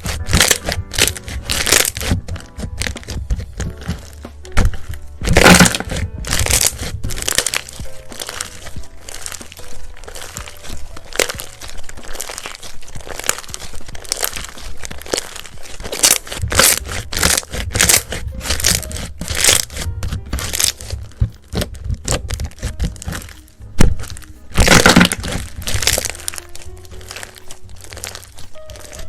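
Slime being squeezed and pressed, giving dense crackling and crunching, with louder bursts of crackling about five seconds in and again near the end. Background music with a low bass runs underneath.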